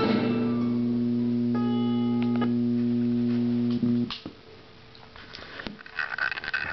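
Guitar music played through a small speaker driven by a DIY class-D audio amplifier: a final guitar chord rings out and stops suddenly about four seconds in, followed by a few faint clicks.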